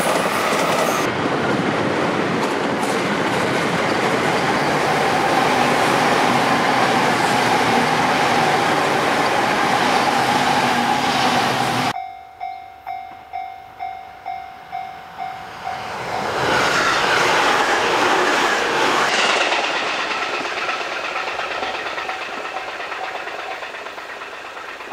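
JR East 255 series electric limited express trains running past: wheel and rail noise with a steady motor whine as one passes close by. After a sudden cut, a ringing signal sounds about two strikes a second, then a train comes up loud, passes and fades away.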